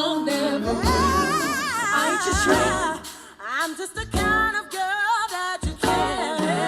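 Pop song played through a portable Bluetooth speaker during a sound test: a female singer's wavering melodic runs over deep bass notes, with a short lull about three seconds in.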